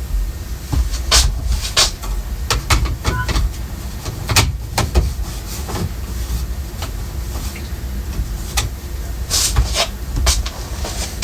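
Handling noise from a smoke alarm being put back up on its mount: scattered clicks, knocks and rubbing, with a low rumble underneath.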